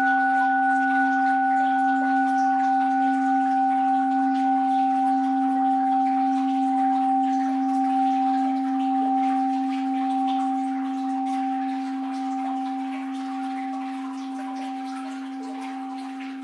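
Orin (Japanese Buddhist bowl bell) ringing on after a single strike: a low tone with two higher overtones that wavers slightly as it slowly fades, over a faint hiss of flowing water.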